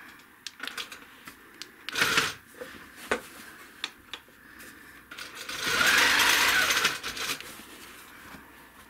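Handi Quilter longarm quilting machine stitching in one burst of under two seconds, a little past the middle, with scattered clicks and a short knock from handling before it.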